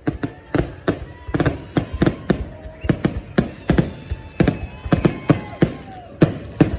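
Fireworks exploding in a rapid, irregular barrage of sharp bangs, several a second.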